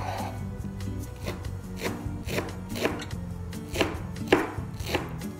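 Knife finely chopping fresh parsley, irregular strokes, the two loudest about four seconds in, over background music.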